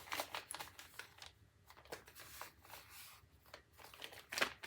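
Faint rustling and light clicks of small replacement parts and plastic parts bags being handled, with a sharper click near the end.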